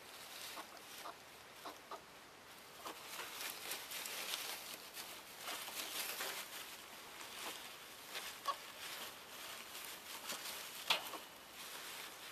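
Shredded-paper bedding rustling and crinkling as two ferrets wrestle and scramble through it, with irregular scratches and small sharp clicks; the sharpest click comes near the end.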